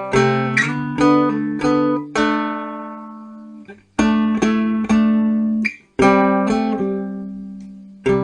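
Background music: an acoustic guitar playing plucked notes and chords that ring out and fade, in short phrases with brief breaks.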